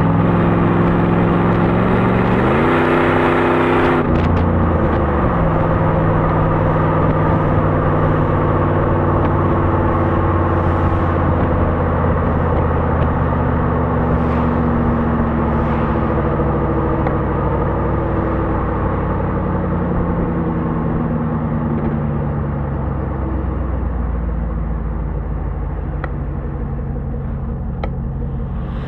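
1997 Jeep Grand Cherokee's 5.2-litre Magnum V8 running through a Magnaflow muffler while driving. The revs climb about two seconds in and fall away sharply around four seconds, then the engine cruises with slow small changes in pitch and gets somewhat quieter near the end.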